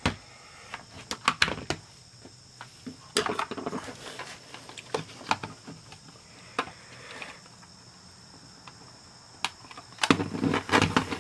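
A plastic pry tool working at the seam of a small plastic cassette player's case, with hands handling the player: scattered clicks and taps, and a busier run of clicking and scraping near the end as the tool works at the case's clips.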